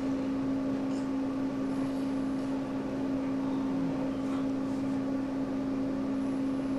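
Steady machine hum, holding one low pitch, with a few faint soft ticks.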